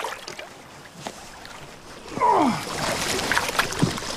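Sea water sloshing against the ice edge beside a moored boat. About halfway through, a short cry falls steeply in pitch, and a louder rough noise with scattered clicks follows.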